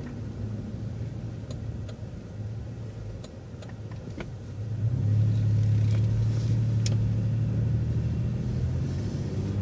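City bus engine running at low revs, then pulling away: its steady low hum grows much louder about five seconds in as the bus accelerates out of a right turn from a stop sign.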